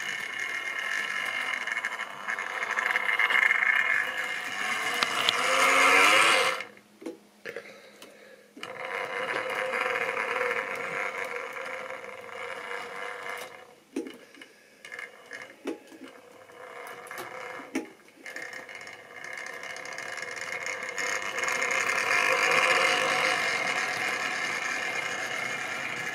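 00-gauge model train running on sectional track: the locomotive's small electric motor whirs steadily with the wheels rattling over the rails, growing louder as the train comes close. The sound drops away about six and a half seconds in, with a few separate clicks in the middle, then builds again as a rake of tank wagons passes close by.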